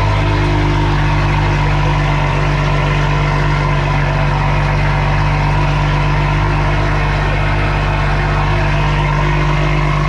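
2020 Toyota Supra idling steadily through a Boost Logic titanium non-valved cat-back exhaust, a loud, even drone at a cold-start idle.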